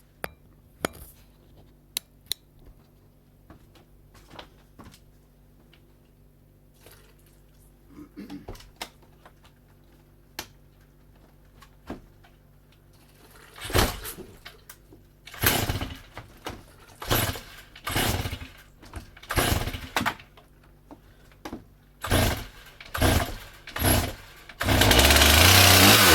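Stihl GS 461 concrete-cutting chainsaw's two-stroke engine being pull-started: a quiet stretch of handling clicks, then about a dozen short loud pulls and sputters roughly a second apart. Near the end the engine catches and runs loud and steady.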